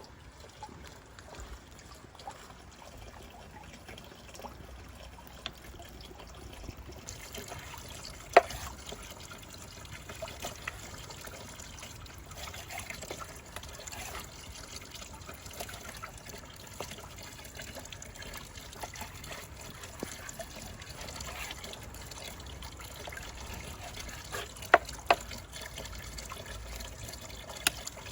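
Steady trickling of water, with a few sharp clicks or knocks: one about eight seconds in and two close together near the end.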